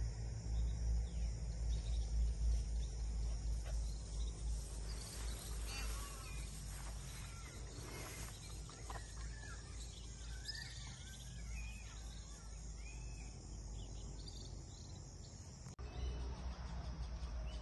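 Open-air pasture ambience: a low, gusting rumble of wind on the microphone under a steady high insect hiss, with birds chirping in the second half.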